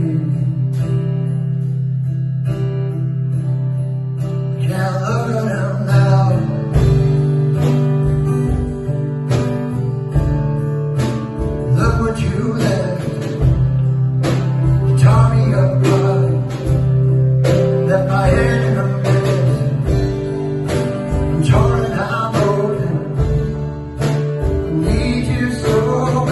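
Live band music: a strummed acoustic guitar over steady low notes, with a man singing from about five seconds in.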